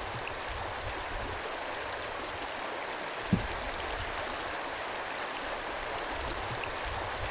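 Stream water running steadily, with one brief low thump a little over three seconds in.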